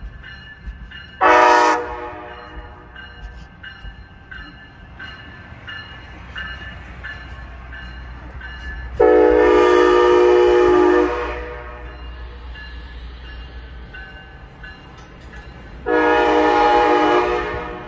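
Amtrak Siemens Charger locomotive sounding its air horn three times: a short blast about a second in, then two long blasts of about two seconds each, near the middle and near the end. Under the horn is a faint steady ticking in the first half, and the low rumble of the passing train from about six seconds in.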